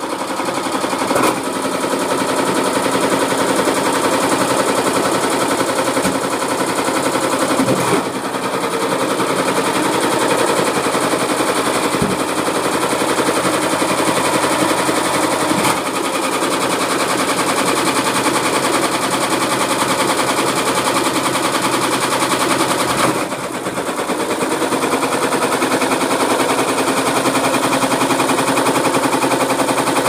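Hotpoint Aquarius 6kg washing machine with a load of drinks cans and bricks in its turning drum, giving a loud, rapid, continuous clattering and banging. The rattle dips briefly about a third of the way in and again past the two-thirds mark.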